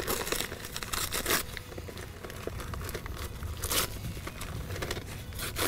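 Heavy multi-wall paper sack being torn open by hand, its torn paper top rustling and crinkling in a series of irregular rips.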